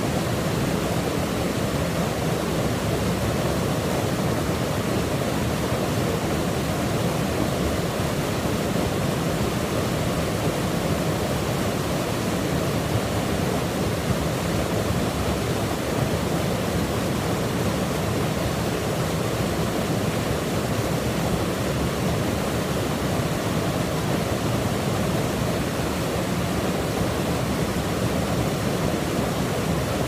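Stream water rushing steadily over rocks and a small waterfall into a pool, a constant even rush with no let-up.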